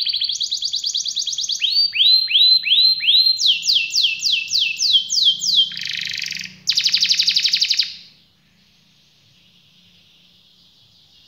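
Red canary singing a rolling song. It opens with a fast trill, then a run of downward-sweeping notes about three a second, repeated at a higher pitch, then a buzzy trill and a last fast trill that stops about eight seconds in. Only a faint hiss follows.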